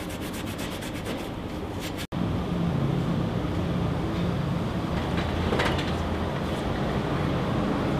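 Rusty steel chassis rail scrubbed by hand with an abrasive scrubber: quick, rapid rasping strokes for about two seconds. It then gives way to a steady low mechanical hum.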